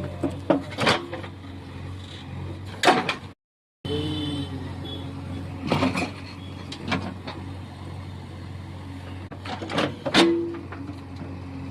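Excavator's diesel engine running steadily, with several sharp knocks and scrapes from the bucket digging at soil and tree roots.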